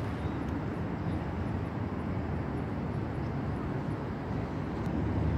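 Steady low rumbling outdoor background noise with no distinct event.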